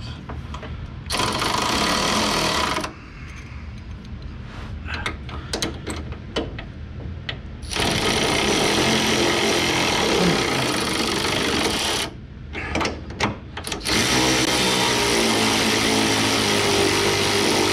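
Impact wrench run in three long bursts, the first short and the last two several seconds each, on a stuck suspension fastener that won't come out and is held under spring tension.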